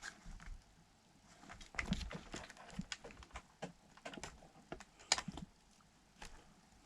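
Scattered light clicks and taps, irregular and quiet, as the plastic body shell of an RC car is handled and metal body pins are fumbled into place at the front.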